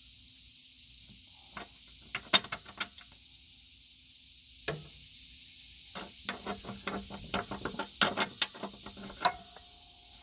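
Light metallic clicks and clinks of loose mower parts being handled around a riding mower's deck pulley. There are a few scattered clicks in the first three seconds and one near five seconds, then a quick run of them from about six to nine seconds in.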